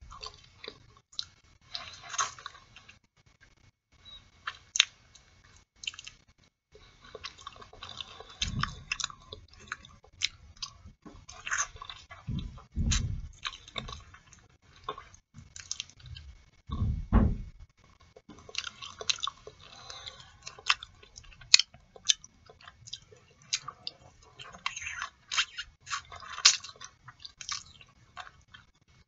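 Close-miked eating of boiled artichoke leaves: wet smacking, clicking and chewing as the soft flesh is scraped off each leaf with the teeth. A few brief low sounds come in the middle.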